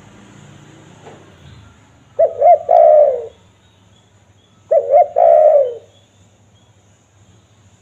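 Spotted dove (tekukur) cooing: two calls about two and a half seconds apart, each two short notes followed by a longer coo that falls in pitch.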